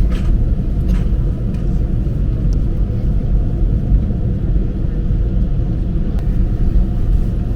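Steady low rumble of an Airbus A330-300 economy cabin with the engines running at idle after start, with a few faint clicks about a second in.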